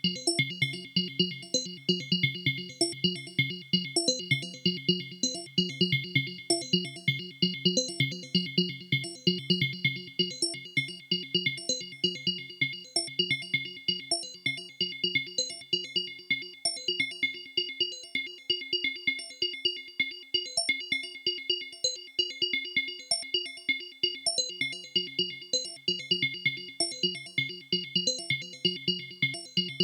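Dave Smith Evolver synthesizer playing a sequenced patch: a fast, steady run of repeated short notes over a sustained high tone. The low part of the pattern drops out for about ten seconds in the middle and comes back near the end.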